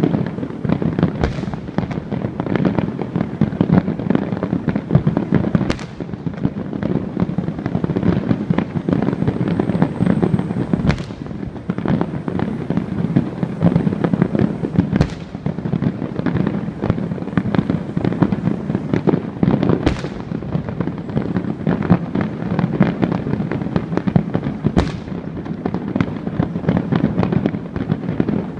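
Fireworks display going off without a break: dense crackling and popping, with a louder bang standing out about every five seconds.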